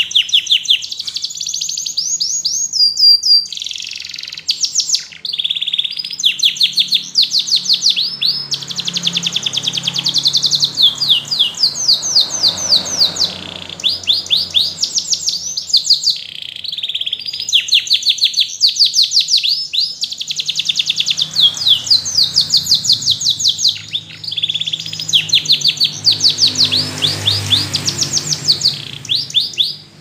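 Yellow domestic canary singing a long, continuous song of fast rolling trills and rapidly repeated notes, broken by a few short pauses.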